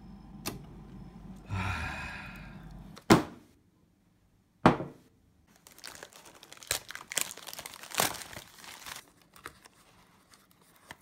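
Clear plastic shrink-wrap being torn and crinkled off a small cardboard product box, then the box flap pulled open. It is preceded by a low hum and two sharp thunks about three and five seconds in.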